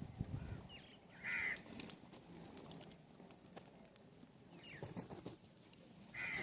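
Birds at a feeder calling: a few short calls, the loudest about a second in and again near the end, with fainter chirps between and light clicks scattered throughout.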